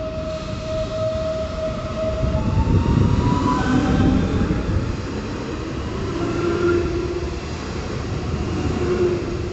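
Passenger train running along the platform: a loud low rumble with several whining tones over it, one climbing in pitch about three seconds in.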